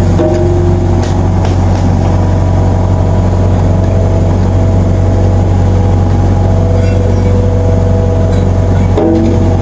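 A small engine running steadily at constant speed, a loud low hum with a pitched drone above it whose note shifts slightly near the end.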